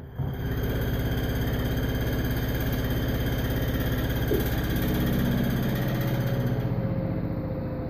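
LG 3250 washing machine making a rapid, steady tapping and clicking over a mechanical hum; the noise comes from the brand-new machine as soon as it is plugged in, a sign of a fault.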